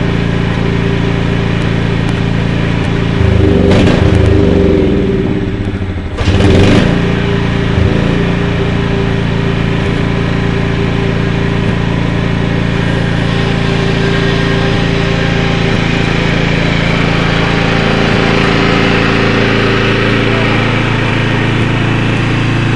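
Lawn mower engine running steadily, with two louder, rougher stretches about three and six seconds in.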